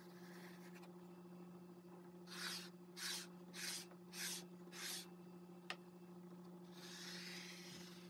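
A notched spreader scraped over wet paste and paint on a silicone mat. Five quick rasping strokes come about half a second apart, then a single click, then one longer, softer stroke as the comb is drawn through the paste to make lines. A steady low hum runs underneath.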